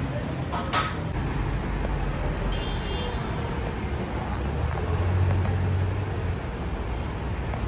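Street traffic: cars and engines running steadily, with a heavier engine rumble passing about five seconds in. A short high beep sounds about three seconds in.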